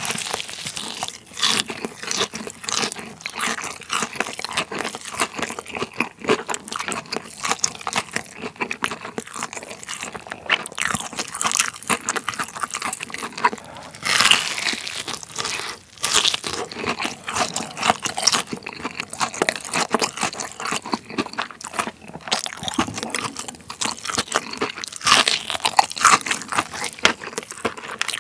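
Crunching bites and chewing of a large Lotteria Jipai Taiwanese-style fried chicken cutlet, its crisp breading crackling close to the microphone. The loudest bites come about halfway through and again near the end.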